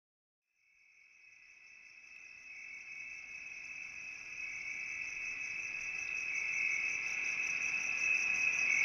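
Steady chorus of chirping insects with a fast pulsing trill, fading in from silence and growing louder.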